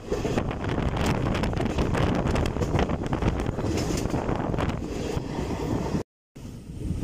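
Wind buffeting the microphone at the open door of a moving passenger train, over the running rumble and clatter of its wheels on the rails. The sound cuts out for a moment about six seconds in.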